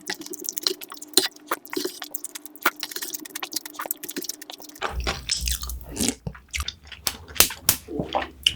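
Close-miked eating sounds: chewing and biting with crunching and wet mouth clicks, irregular and dense throughout.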